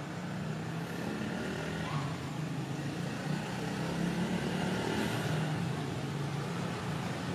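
Steady low hum of an engine running, with a broad background noise and no distinct calls.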